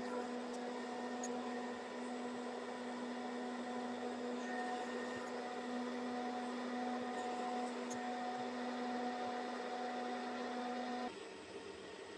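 Deckel FP2 milling machine running with a steady hum, which stops abruptly about eleven seconds in.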